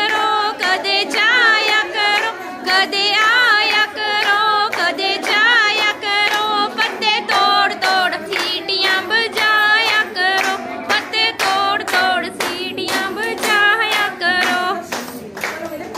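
A voice singing a Punjabi folk song with a wavering, ornamented melody, over steady rhythmic hand clapping from a group of people. The singing stops near the end.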